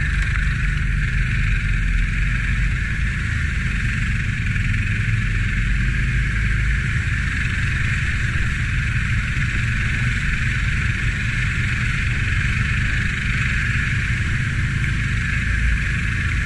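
Can-Am ATV engine running steadily at trail speed, heard from the machine itself, a deep, even rumble.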